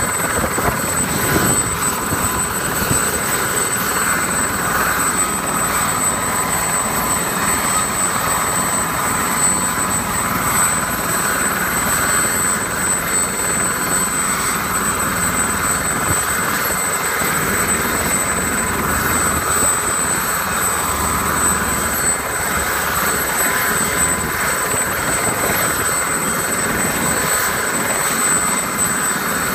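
Aérospatiale SA 342M Gazelle helicopter ground-running with its rotor turning, its turboshaft engine giving a steady high whine over the rotor and engine noise. The level holds even throughout, without rising.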